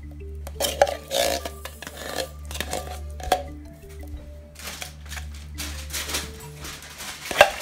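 A metal spoon scraping and clinking against a tin can and a stainless steel bowl as a thick paste is scraped out, with several sharp clinks, the loudest near the end. Soft background music plays throughout.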